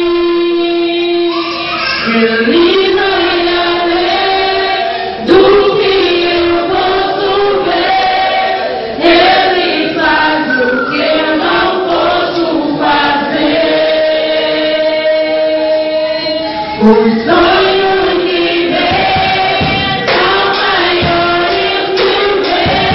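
A girl singing a Christian song into a microphone, her voice amplified through the hall's loudspeaker, with long held notes and sliding melody lines.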